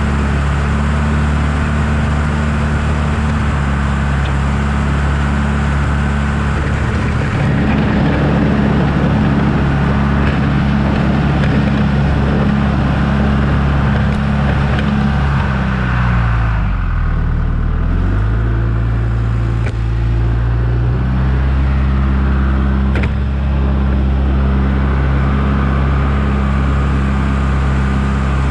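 John Deere 310G backhoe's diesel engine running steadily. Its speed drops for a couple of seconds a little past the middle, then comes back up.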